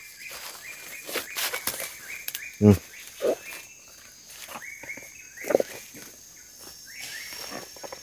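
Footsteps and rustling through leaf litter and undergrowth, with a few brief low grunt-like sounds and a faint steady insect drone behind.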